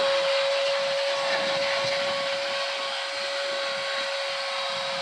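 Vacuum cleaner running steadily with a constant high whine, its hose nozzle being worked over a car's floor carpet.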